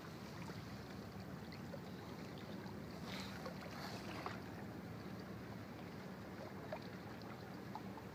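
Small waves lapping against the harbour's stone quay, over a steady low hum.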